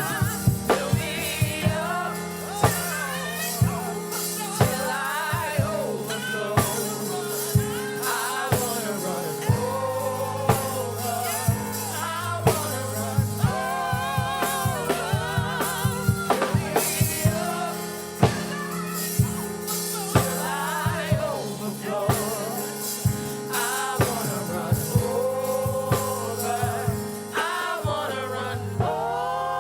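Live gospel worship music: singers hold and bend long notes with vibrato over a drum kit with frequent sharp hits and a steady low bass and keyboard bed.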